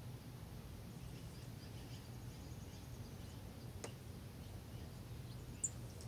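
Quiet outdoor ambience: a steady low hum under faint, scattered high chirps of small birds. A sharp click comes just before four seconds, and a brief high chirp near the end is the loudest sound.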